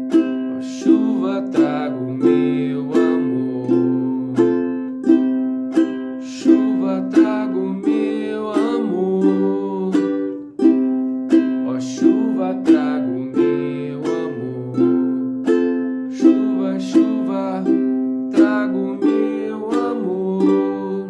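Instrumental music on a strummed acoustic string instrument: evenly spaced strums with ringing chords and a picked melody, with a short break about halfway through.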